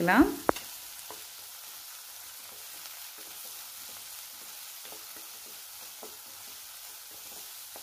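Chopped onions and tomatoes sizzling faintly in oil in a nonstick pan, stirred with a wooden spatula that scrapes lightly across the pan. A single sharp knock comes about half a second in.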